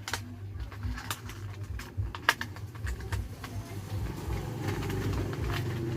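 A low steady rumble that swells in the second half, with a few sharp clicks and taps scattered through it.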